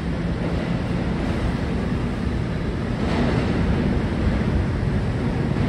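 Steady low rumble of an R211 subway train running away down the tunnel, with a brief brighter hiss about three seconds in.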